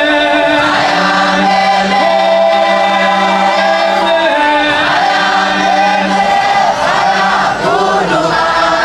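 A group of voices singing together in chorus, holding long notes that slide between pitches.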